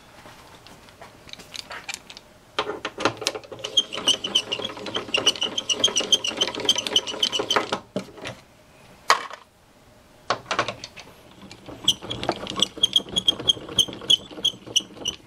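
Crank-style speed wrench with a 10 mm socket spinning out fan-shroud bolts: two runs of rapid, even clicking as it turns, with a couple of sharp knocks between them.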